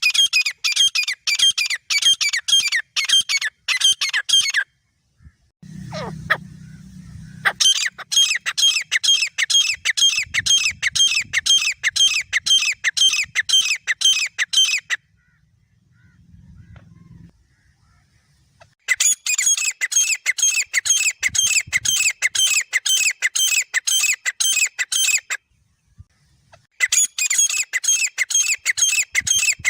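Grey francolin pair calling: rapid runs of shrill, evenly repeated notes, about four a second, in bouts of several seconds with short pauses between them.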